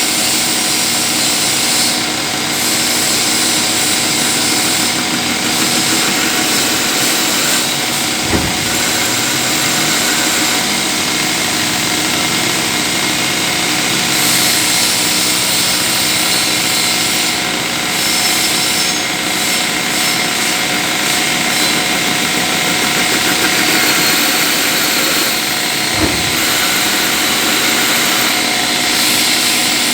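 CNC lathe running steadily while turning a pulley, with a high cutting hiss over a steady machine hum. There are two brief knocks, about 8 seconds and 26 seconds in.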